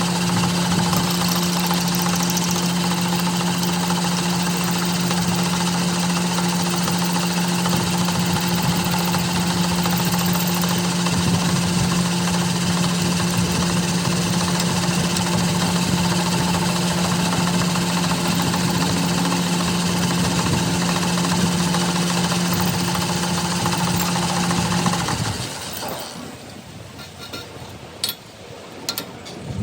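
A workshop machine running steadily with a constant hum and rattle, shutting off about 25 seconds in; a few faint clicks follow.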